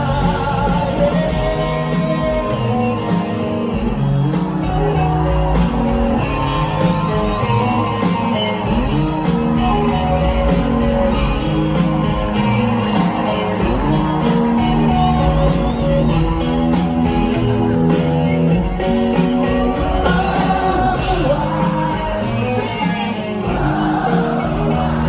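Rock band playing live in an arena: electric guitars, bass and drums with singing over them, echoing in the large hall.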